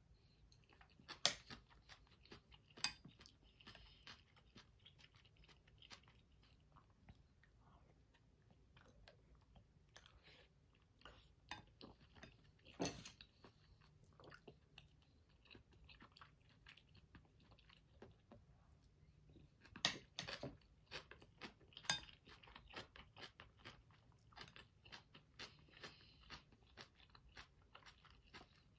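Close-miked eating sounds: soft chewing of dumpling soup. Several sharp clicks of the wooden chopsticks and spoon against the ceramic bowl stand out through it.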